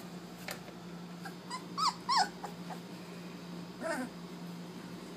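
Labrador retriever puppies whimpering and yelping: a few short, high cries that rise and fall, bunched about two seconds in, then a lower cry near four seconds.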